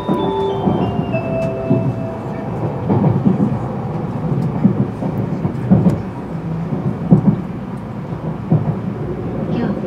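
Cabin noise of a Shinkansen bullet train rolling slowly: a steady low rumble with irregular knocks and clatter from the wheels. A short chime melody plays out its last notes in the first two seconds.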